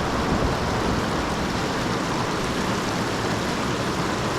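Steady rushing of flowing stream water, an even noise with no break.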